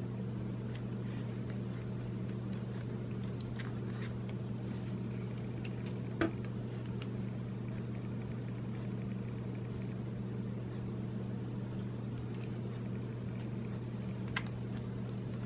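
A steady low hum runs under small scattered clicks and taps of a precision screwdriver and a plastic camera body being handled as screws are driven in. A sharper click comes about six seconds in, and another near the end.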